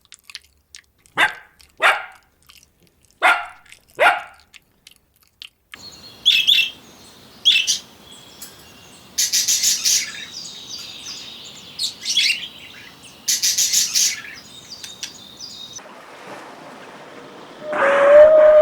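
Farm animal calls in several short takes: four short, separate yelps or barks, then chirping bird calls broken by two bursts of rapid clattering, and near the end a long, steady call begins.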